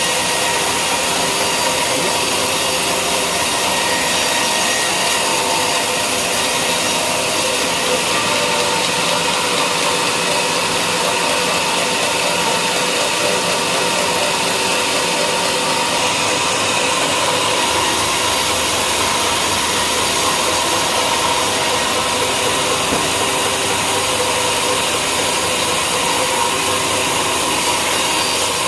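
Sawmill running steadily, its saw cutting wadang timber into battens, a continuous machine noise with a steady hum.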